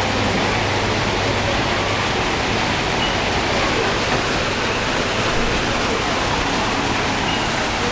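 Steady rushing of falling water from an aquarium exhibit's water feature, even and unbroken, with a faint murmur of voices behind it.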